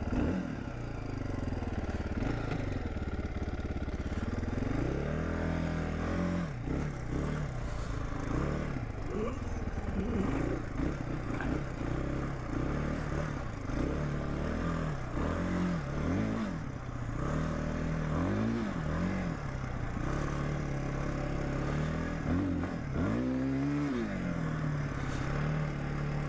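1999 Suzuki DR350's single-cylinder four-stroke engine, just rebuilt and on its first test run, revved up and down over and over. The revs swing from about five seconds in, with the biggest rise near the end, then settle back to a steady idle.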